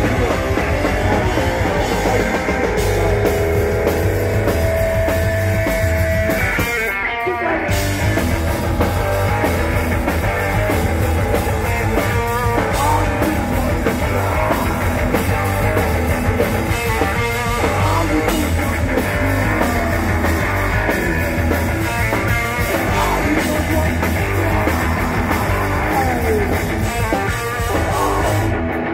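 Four-piece hardcore punk band playing live at a fast pace: distorted electric guitar, bass, drum kit and vocals, loud throughout, with a brief stop about seven seconds in.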